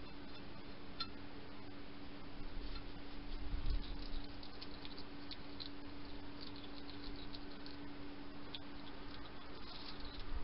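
European hedgehog eating from a dish, its chewing heard as runs of quick, soft clicks and smacks, with a dull bump about three and a half seconds in.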